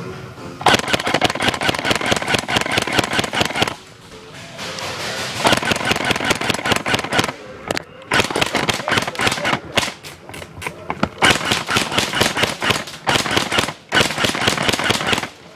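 Airsoft electric gun firing on full auto: several long bursts of rapid clicking shots, each a second to three seconds long, with short breaks between them.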